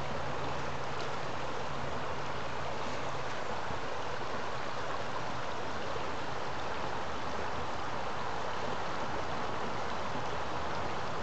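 Shallow creek flowing over a gravel riffle: a steady rush of moving water.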